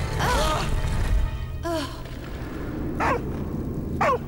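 Cartoon soundtrack: music over a steady low rumble, with several short cries that fall sharply in pitch, from children sliding down the ice.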